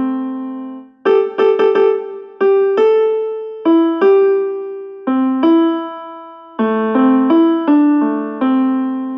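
A message ringtone melody in piano-like keyboard notes, each struck and fading. There is a short break about a second in, then the tune repeats as a loop, starting with a quick run of notes.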